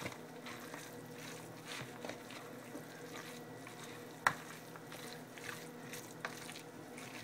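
A plastic spoon stirring tuna salad with mayonnaise in a plastic container: soft wet scraping and squishing, with one sharp tap a little past halfway.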